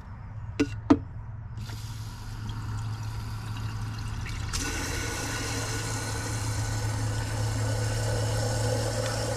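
Water running from a campervan sink tap into an electric kettle, growing louder a few seconds in as the stream fills the kettle, over a steady low hum from the van's water pump. Two sharp clicks about a second in.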